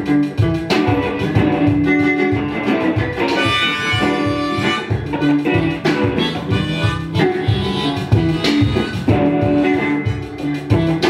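Live music from two electric guitars over a steady pulsing bass beat, with a sustained lead melody on top.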